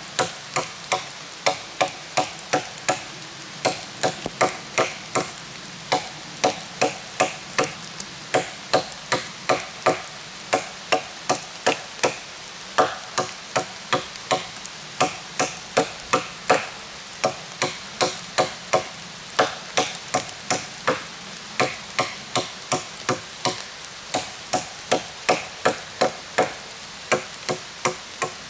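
Solognac Sika 130 Grip fixed-blade knife chopping into a green branch about 5–6 cm thick: steady swung blows of the blade biting into the wood, about two sharp knocks a second, knocking out big chips as it cuts a notch.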